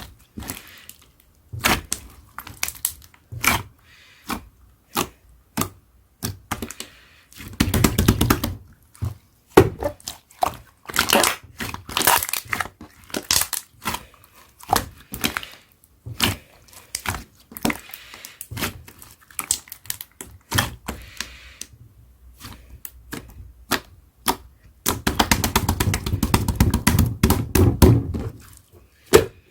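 Clear slime being handled: a long irregular run of sharp clicks and pops as it is pressed and poked. Two stretches of denser, fuller squishing crackle come about a quarter of the way in and again near the end.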